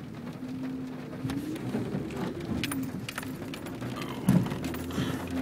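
Car cabin while driving on a wet road: a steady low engine hum with scattered light ticks and taps, and one loud thump about four seconds in.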